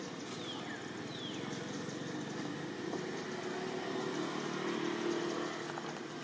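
Low drone of a distant motor vehicle engine, growing louder through the middle and easing off near the end, over steady outdoor background noise. Two short high whistles fall quickly in pitch within the first two seconds.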